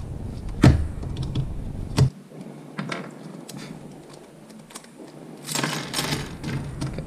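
Plastic clicks and rattles as a MeiLong 7x7 v2 speedcube is pulled apart by hand: two sharp clicks in the first two seconds, a few light ticks, then a clatter of small plastic pieces spilling onto the table about five and a half seconds in.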